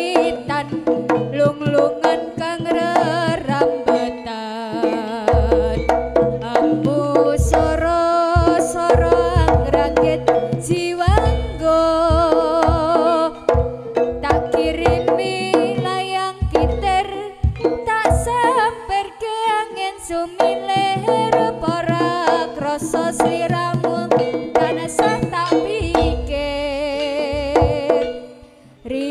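Live jaranan gamelan music: kendang hand drums and gong percussion under a wavering, vibrato-laden melody line. It breaks off briefly near the end.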